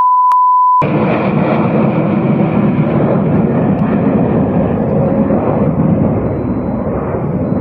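A short steady beep, then the loud, steady roar of a low-flying Ilyushin Il-76 transport's four turbofan engines, with one engine on fire.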